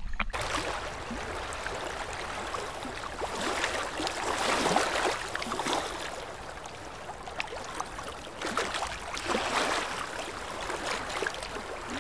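Small waves sloshing and gurgling around a camera at the waterline, coming in uneven surges with little splashy ticks.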